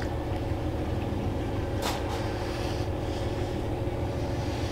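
A steady low motor drone, with a single short click about two seconds in.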